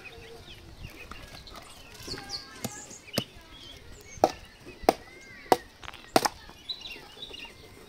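Hatchet chopping and splitting thin pieces of wood resting on a stone. A series of sharp strikes, the strongest six coming in the second half about two-thirds of a second apart.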